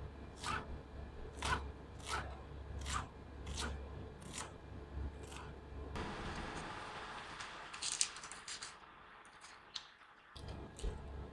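Kitchen knife slicing fresh green chilies on a wooden chopping board: about seven crisp cuts, one every two-thirds of a second or so. After about six seconds the cutting gives way to softer rustling and a few light taps as shallots are handled.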